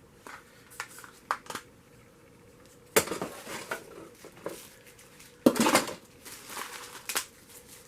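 Camcorder accessories being handled and unpacked: scattered sharp clicks and short clatters of small hard parts, the loudest clatter about five and a half seconds in.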